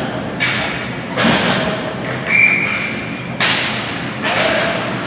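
Several sharp thuds over steady background crowd noise in a large indoor hall, with a short high squeak or whistle lasting about a second a little past two seconds in.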